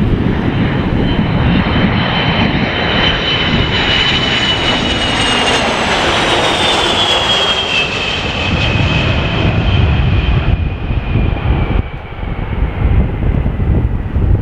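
Boeing RC-135 Rivet Joint's four CFM F108 turbofans whining loudly as the jet flies low past, the whine dropping in pitch about halfway through. Strong gusting wind buffets the microphone underneath.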